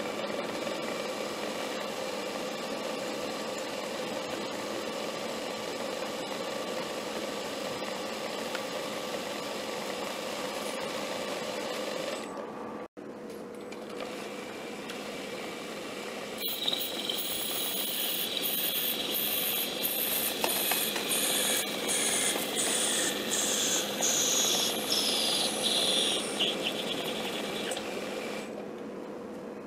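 Small metal lathe running with a steady hum while turning a compressor piston. Past the middle, a louder high-pitched squeal from the cutting tool on the spinning piston slides slowly down in pitch, then stops shortly before the end.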